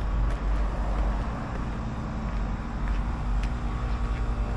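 Steady outdoor background noise: an even low rumble with a few faint clicks.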